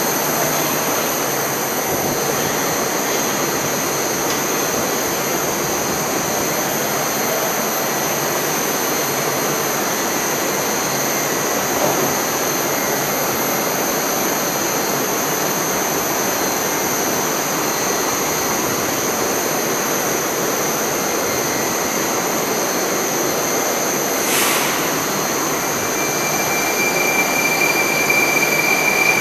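Metrowagonmash 81-760/761 'Oka' metro train standing at the platform with its doors open, its onboard equipment giving a steady noise with a thin high whine. A single sharp knock sounds about three-quarters of the way through, and near the end a new steady tone starts as the sound grows louder.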